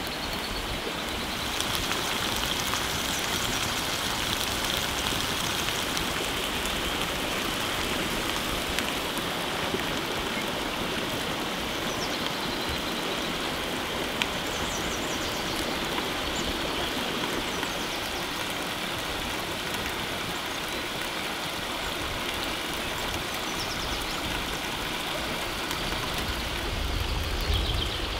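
Thick rendang sauce simmering and sizzling in a cast-iron skillet over an open wood fire, a steady hiss with faint scattered crackles. There is a louder low rumble near the end.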